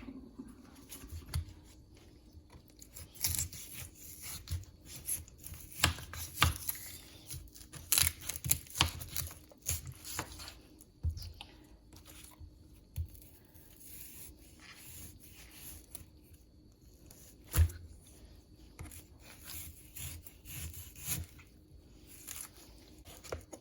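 Raw chicken being cut into pieces: irregular knocks of a blade on a cutting board, mixed with short tearing and scraping sounds of meat being pulled apart.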